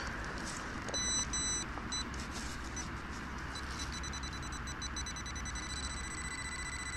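Metal-detecting pinpointer probing a freshly dug hole: a few short high beeps about a second in, then a continuous high beep from about halfway on as the probe comes up on the buried metal target.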